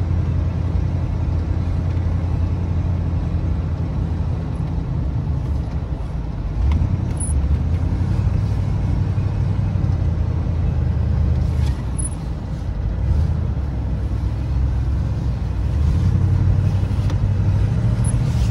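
1987 Ford Bronco's 302 Windsor V8 running through a homemade twin exhaust while driving, a steady low drone heard from inside the cab. It swells and eases off a few times.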